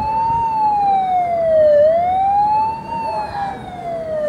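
Siren wailing: one loud tone that rises quickly and falls slowly, about every two and a half seconds. It cuts off abruptly near the end.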